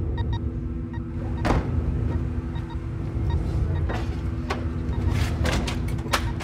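Ambulance van idling with a steady low rumble and hum. A single sharp clunk comes about a second and a half in, and a quick run of metallic clicks and clunks near the end, from the van's doors and equipment being handled.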